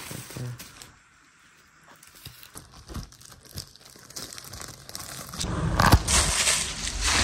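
Plastic wrapping crinkling and rustling as it is handled: scattered light crackles at first, becoming dense and much louder about five and a half seconds in.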